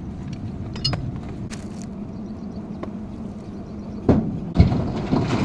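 Metal clanks and knocks from brake repair work on a Mahindra pickup, a few light clicks at first, then a run of heavier knocks about four seconds in, over a steady low engine hum.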